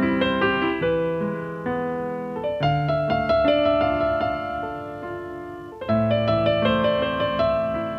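Background piano music: chords and melody notes struck and left to ring, with a new chord struck about six seconds in.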